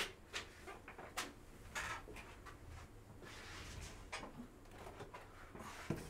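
Faint tabletop handling noises: scattered light clicks and taps with a few short rustles, from trading cards and plastic card sleeves being handled.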